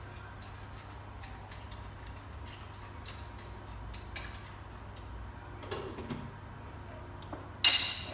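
Pasta being stirred in a pot, with scattered light ticks and knocks of the utensil against the pot. Near the end the lid is set on the pot with one loud clank that rings briefly.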